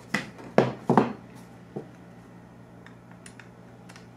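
A few sharp clacks and knocks within the first second or so, as a small plastic bit case is handled and set down on a table, then faint scattered clicks of a small screwdriver working at a device's case screws.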